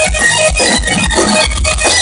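Live rock band playing loud distorted electric guitar over drums, heard from inside the crowd on a poor-quality phone recording.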